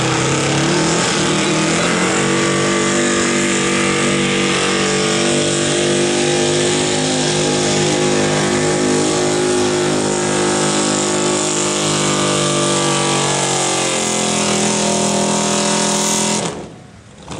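Square-body Chevrolet 4x4 pickup's engine held at high revs under heavy load as it drags a weight-transfer pulling sled across dirt, a loud, steady drone. Near the end it cuts off suddenly as the pull ends.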